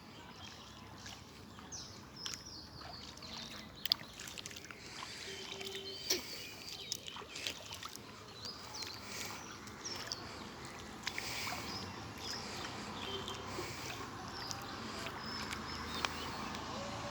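Outdoor background noise with birds chirping now and then in short high calls, and a few scattered sharp clicks.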